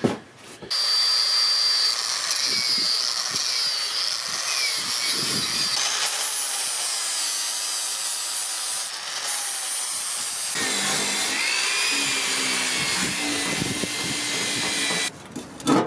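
Angle grinder with an abrasive disc grinding rust off a forged steel broadaxe head, a steady grinding noise with a whining tone that wavers in pitch. It starts about a second in, changes character abruptly twice, and cuts off near the end.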